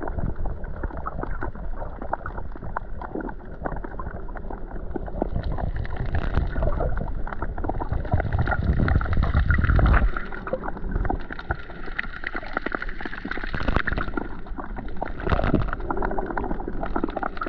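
Water sound picked up by a submerged camera: muffled sloshing and gurgling full of fine crackles and clicks. A louder low rush builds about eight seconds in and breaks off at about ten seconds.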